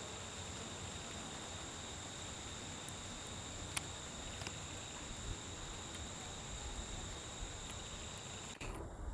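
Insects droning on a steady high pitch over faint background hiss, with one sharp click about four seconds in; the drone cuts off abruptly near the end.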